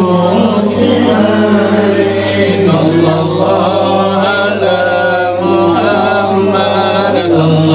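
A group of voices chanting devotional verses in unison, with long held notes, over a steady low hum.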